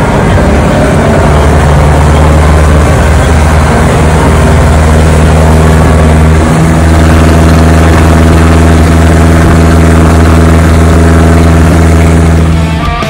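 MerCruiser sterndrive boat engine running hard and steady as the boat heads out at speed, over the rush of water and wind. The engine note wavers briefly about halfway through.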